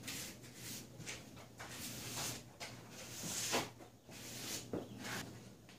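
Glue brush scrubbing glue along the edge of a plywood floor: a run of short brushing strokes, about two a second, over a faint steady hum.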